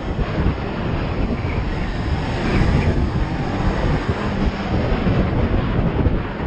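Honda CB500X's parallel-twin engine running while the motorcycle is ridden along, mixed with heavy wind buffeting on the microphone.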